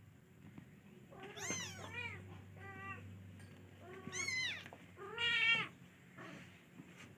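Domestic cat meowing repeatedly, about five calls that each rise and fall in pitch, the last one the loudest.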